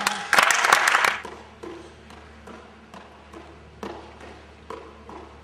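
A short burst of rapid, loud knocks and rattling early on, then a string of separate taps and light thuds every half second to a second: hands slapping the leather of a pommel horse as a gymnast circles on it.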